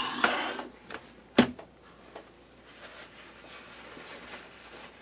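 Laptop parts being handled during reassembly: a brief rubbing scrape, then a sharp click about a second and a half in.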